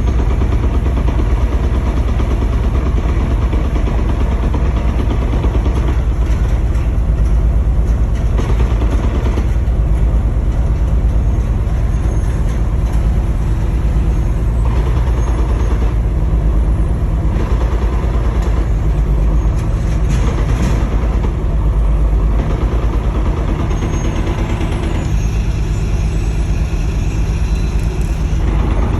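BMW S54 straight-six engine running steadily with a knock. The owner places the knock in the bellhousing or transmission, not the rod bearings, and suspects the DSSR hitting the guibo.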